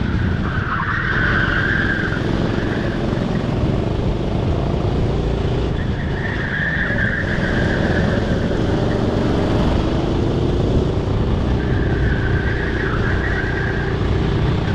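Go-kart engine running hard, its pitch rising and falling with the throttle. Three times a high squeal comes in for a second or two, the tyres squealing through the corners.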